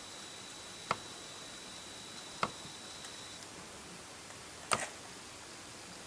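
Three short, sharp clicks over a faint steady hiss, from a hot glue gun and the plastic water bottle being handled while glue is run around the bottle's base. A faint high steady whine sits under the first half and stops about three seconds in.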